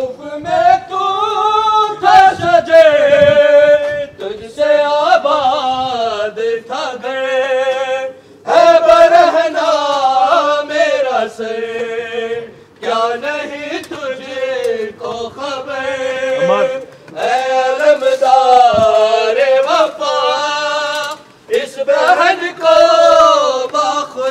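Male voice singing an Urdu noha, a Muharram mourning lament, unaccompanied, in long phrases with a wavering, ornamented pitch, broken every few seconds by a short pause for breath.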